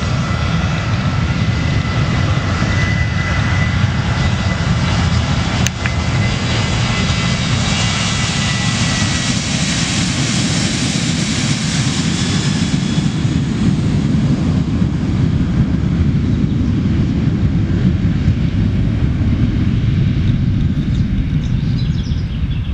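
Boeing 737-700's CFM56-7B turbofan engines at takeoff power during the takeoff roll and climb-out. A loud, steady jet noise with a high whine for the first nine seconds or so; the hiss is strongest around ten to twelve seconds in as the jet passes, then it settles into a deep rumble that fades near the end.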